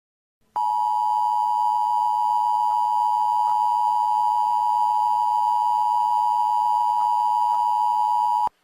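Emergency Alert System attention signal: a steady two-tone electronic alarm (853 Hz and 960 Hz together) that starts abruptly about half a second in, holds unchanged for about eight seconds, then cuts off sharply.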